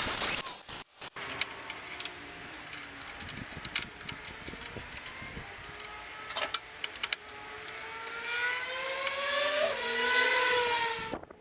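A power tool's motor running with a noisy hiss and scattered sharp ticks. Its pitch climbs over the last few seconds, and it shuts off suddenly just before the end.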